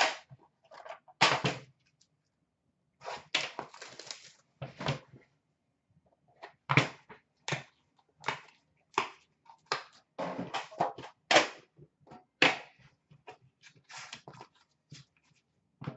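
Metal trading-card tins and their lids being handled and set down on a glass counter: a scattered string of sharp clicks, taps and knocks, with short stretches of rustling a few seconds in.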